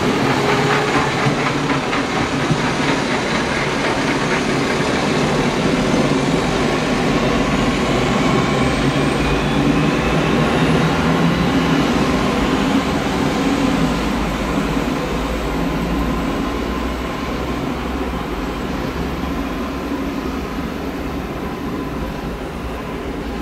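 A train of coupled RegioShuttle diesel railcars running as it draws away along the track. The steady sound of engines and wheels holds, then slowly fades from about halfway through as the train recedes into the distance.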